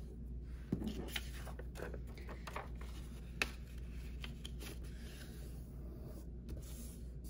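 Paper squares being folded into triangles and creased by hand: soft rustling and scraping with a few light clicks, over a steady low hum.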